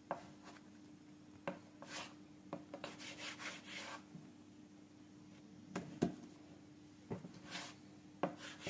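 Hands kneading and pressing yeasted dough on a wooden board: soft rubbing and sliding swishes, with a few sharp knocks against the board.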